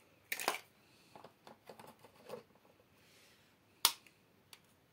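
Eggs cracked against the rim of a plastic mixing bowl: a sharp crack about half a second in and a louder single crack near the end, with a few faint shell clicks between.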